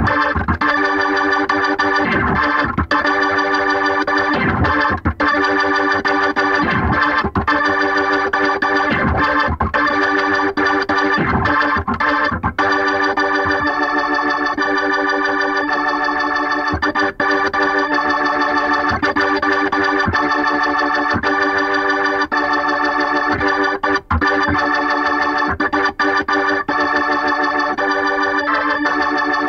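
Isolated keyboard tracks: a Hammond B3 organ holding sustained chords, with struck keyboard notes (piano and Rhodes electric piano) over it, most of them in the first half.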